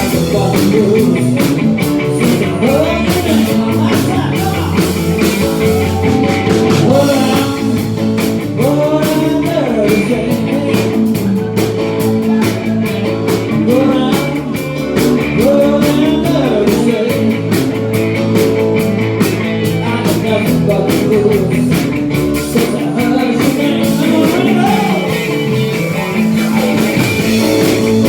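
Rock music with guitar and a singing voice, loud and continuous.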